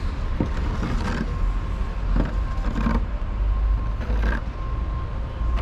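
Metal swing creaking, about five irregular creaks a second or so apart, over a steady low rumble.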